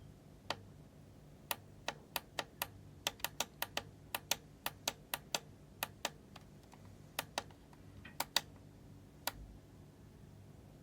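About two dozen sharp, single clicks at an uneven pace, bunched most closely in the middle and thinning out near the end, over a faint steady hum.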